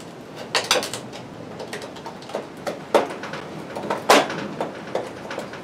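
Hand screwdriver driving a screw into the sheet-metal housing of a fluorescent shop-light fixture at its lamp holders: irregular clicks and scrapes as the screw bites and turns, the sharpest about three and four seconds in.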